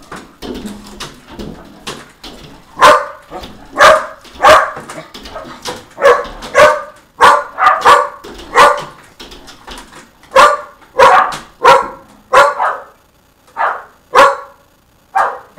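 Shetland sheepdogs barking: a run of about seventeen loud, sharp barks, one or two a second, starting about three seconds in after a quieter start and cutting off abruptly at the end.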